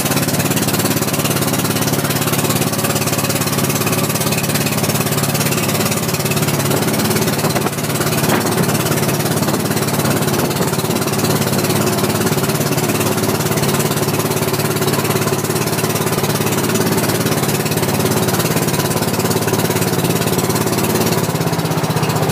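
Outrigger bangka boat's engine running steadily at cruising speed, with the rush of water and wind beneath it.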